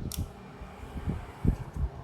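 Hands handling small Tomica toy car boxes and packaging: a sharp click just after the start, then several soft low knocks, the loudest about one and a half seconds in.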